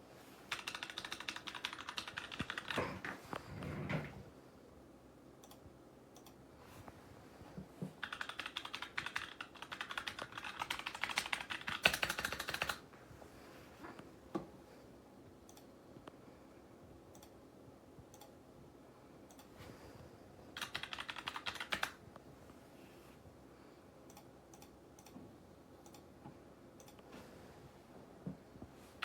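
Typing on a mechanical keyboard: three runs of rapid keystrokes, the middle one the longest, with scattered single key presses between.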